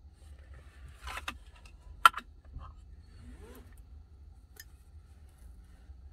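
Handling noises inside a parked car's cabin: a short rustle about a second in, then one sharp click about two seconds in, the loudest sound, followed by a few faint knocks and a thin click, over a low steady hum.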